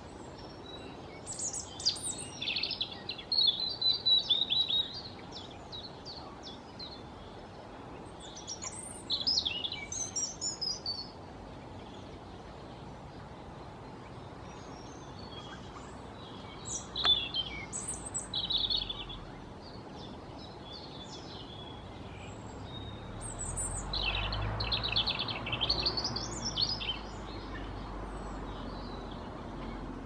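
European robin singing: four high, warbling phrases of two to three seconds each, separated by pauses of several seconds, with a low rumble under the last phrase.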